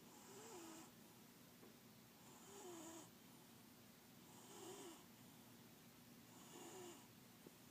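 Domestic cat snoring in its sleep: four faint snores about two seconds apart.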